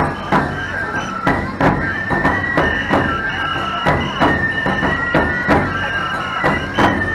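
Nebuta festival music: taiko drums and hand cymbals beating a steady rhythm, with a high bamboo flute melody held note to note above them.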